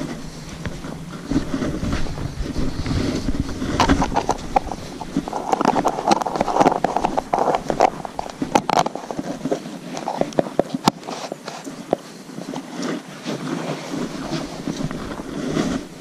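Handling noise of a handheld camera while walking: rustling and brushing from a jacket sleeve against the microphone and footsteps, with many sharp clicks and knocks.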